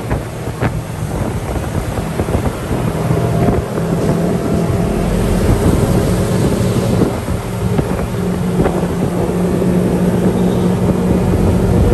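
Open off-road buggy's engine running at a steady pitch while driving, with wind buffeting the microphone and a few short knocks or rattles from the vehicle.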